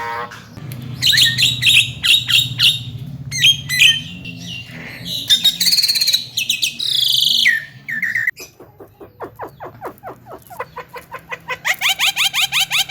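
Javan myna (jalak kebo) singing a varied, chattering song. It runs through quick repeated chirps and harsh whistled phrases, shifts to a run of fast dry ticks a little past the middle, and ends in rapid repeated chirps again.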